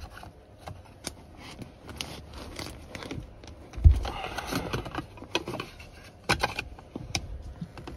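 Filter-housing wrench clicking and scraping as it is worked around a Pentair Big Blue water filter housing, tightening the housing to reseal a leak. A dull thump about four seconds in.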